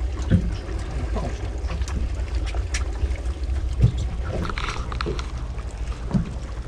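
Steady low rumble aboard a small fishing boat, with wind on the microphone and a few knocks and taps on board, the loudest about four seconds in.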